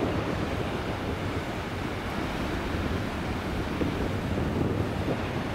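Steady wind buffeting the microphone on the open deck of a ferry under way, over a low rumble from the ship and the water.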